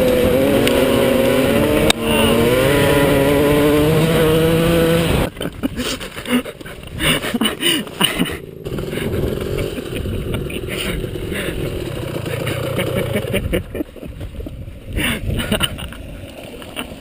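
Suzuki dirt bike engine running hard at speed, its pitch wavering with the throttle. About five seconds in it drops away sharply to a quieter, uneven engine sound with scattered knocks and rattles as the bike comes to a stop.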